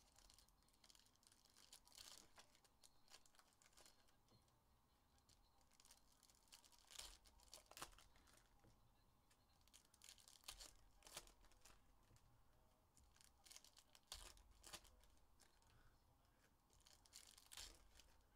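Foil packs of 2022-23 Upper Deck Allure hockey cards being torn open and crinkled by hand, faint, in short scattered bursts of tearing and rustling.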